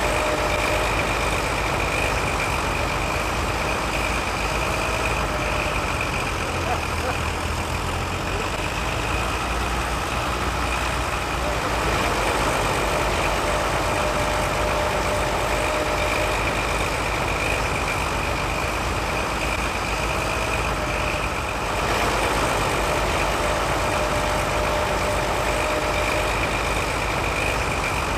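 Tractor engines running steadily under load while pulling ploughs through the soil. First a Roadless 115 four-wheel-drive tractor; after a change about three-quarters of the way through, another tractor with a mounted plough.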